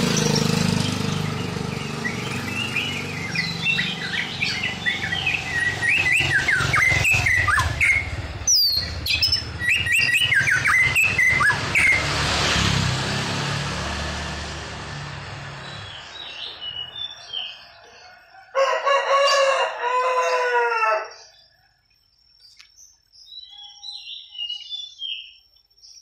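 White-rumped shama singing: runs of varied, fast-sweeping whistled phrases over a low background rumble that fades out past the middle, then softer scattered chirps. About two-thirds through, a loud wavering crowing call lasts about two seconds.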